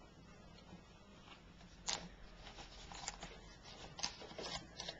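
Quiet room with a few faint, short rustles and soft clicks of handling noise, spread over the second half.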